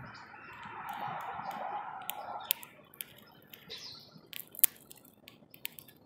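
Small birds at a backyard feeder: sharp clicks and taps from the feeder and a brief chirp, the loudest tap about four and a half seconds in. Over the first two and a half seconds a steady hushing noise fades out.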